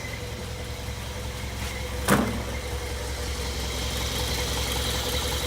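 1964 International Scout 80's four-cylinder engine idling steadily on fresh oil, not yet fully warmed up. A single sharp knock stands out about two seconds in.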